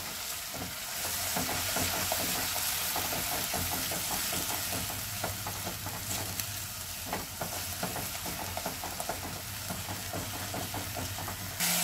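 Onion paste sizzling in hot oil in a kadhai while a spatula stirs and scrapes it continuously, with scattered small scrapes and clicks over an even hiss. This is the frying (bhuna) stage, cooked until the oil starts to separate.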